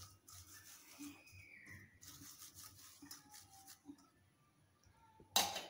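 Cotton wad rubbing oil over a perforated stainless-steel steamer plate, a faint scrubbing that stops about four seconds in. Just before the end comes one short, louder knock.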